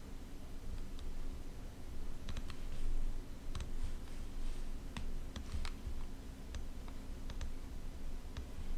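A computer mouse clicking about a dozen times at irregular intervals, some clicks in quick pairs like double-clicks, over a faint low hum.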